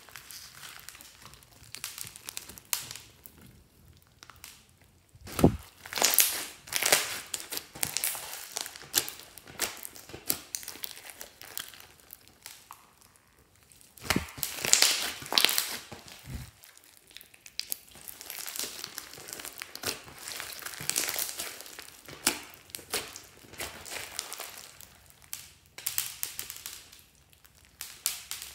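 Hands squishing, stretching and folding a large mass of glossy slime mixed with foam beads, giving irregular crackling, squelching bursts, loudest about five and fourteen seconds in.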